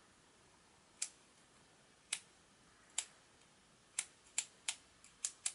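Sharp, short clicks from a hand-held Xiaomi Mijia electric screwdriver being handled and turned, about nine in all: single clicks about a second apart, then a quicker run near the end. No motor is heard.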